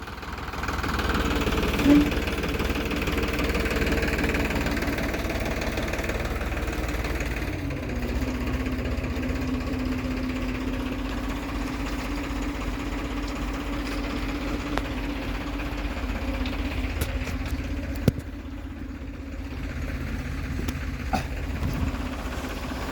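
Heavy diesel machinery engine running steadily, its hum settling to an even pitch about a third of the way through, with a couple of sharp knocks near the end.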